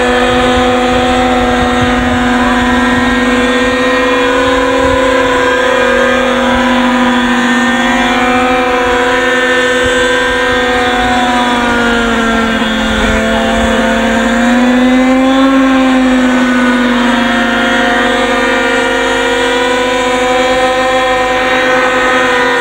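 Radio-controlled model helicopter's engine running at high, steady revs, a loud continuous engine note with overtones; its pitch sags a little past the middle, then rises briefly and settles back.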